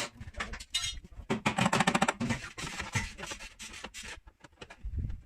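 Quick light metal taps and scrapes, many in a row, from paintless dent repair tools working the dented sheet metal of a car body panel.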